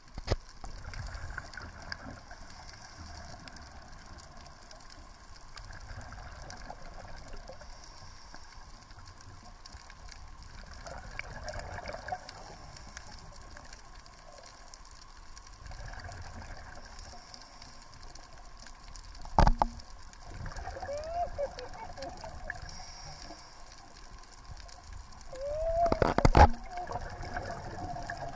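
Scuba diver's breathing through a regulator underwater: a rush of exhaled bubbles swelling about every five seconds over a low rumble. Two sharp knocks come in the last third, along with a wavering, gliding tone.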